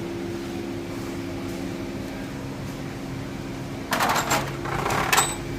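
Steady mechanical hum, then metal hand tools and parts clattering and clinking from about two-thirds of the way in.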